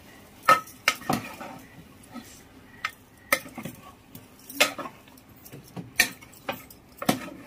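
Metal spoon knocking and scraping against a metal cooking pot while stirring chicken pieces and potatoes into a thick masala: a string of sharp, irregular clinks with soft scraping between them.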